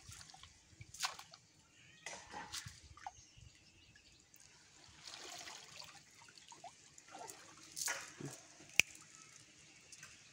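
Water splashing and dripping as a wet cast net is gathered and lifted out of a pond, in scattered short splashes and drips. A single sharp click near the end is the loudest sound.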